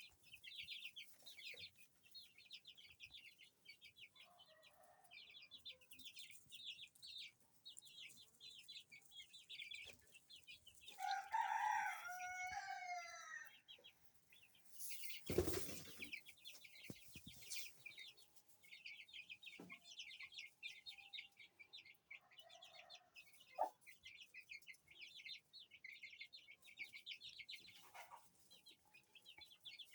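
Chicks peeping steadily in quick high chirps. A rooster crows once, loudly, about eleven seconds in, and a brief rush of noise follows a few seconds later.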